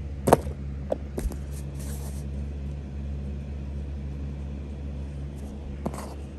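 A steady low hum throughout, with a sharp tap about a third of a second in and a few lighter clicks, from handling the model locomotive and the cardboard it rests on.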